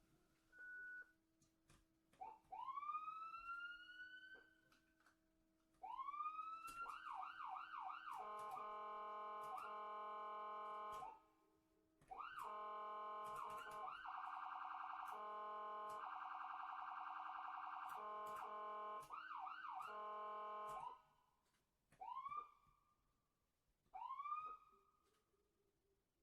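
Electronic ambulance siren cycling through its tones: single rising whoops, a quick run of rising sweeps, then long steady multi-tone blasts with short breaks and a fast pulsing stretch in the middle, before going back to spaced rising whoops near the end.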